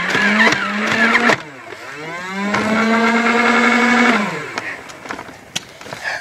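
Electric flywheel motor of a motorized Nerf blaster whining as it is revved twice: the pitch rises, holds steady for a couple of seconds, then winds down, with a few sharp clicks.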